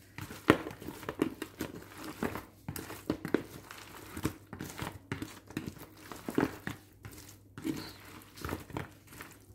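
A spoon tossing sauce-coated fried chicken wings in a bowl, making irregular sticky clicks and squishes.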